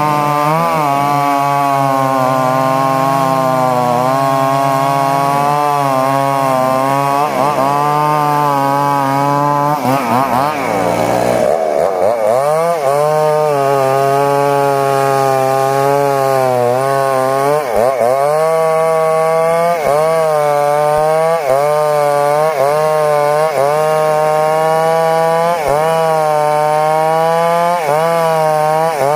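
Stihl two-stroke chainsaw running at high revs while cutting johar wood. Its pitch dips over and over as the chain bites and then recovers, with a deeper sweep down and back up about ten seconds in.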